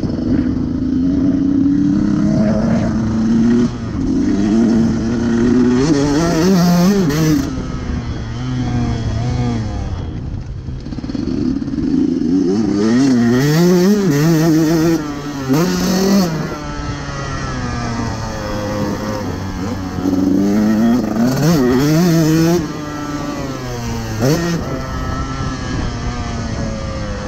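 2018 KTM 150 SX two-stroke motocross bike engine being ridden hard, revving up and down repeatedly, its pitch climbing and falling with each burst of throttle.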